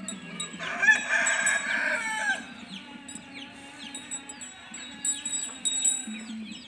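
A rooster crows once, a loud drawn-out call about a second in, over repeated small bird chirps.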